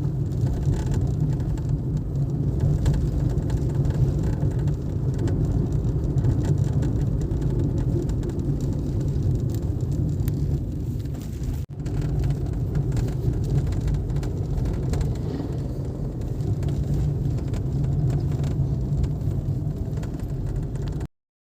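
Cabin noise of a 2021 Suzuki Swift petrol, a steady low rumble, with the dashboard panel at its joint with the blower vibrating: a loose or poorly packed dashboard seam. It breaks off briefly about twelve seconds in and cuts off suddenly near the end.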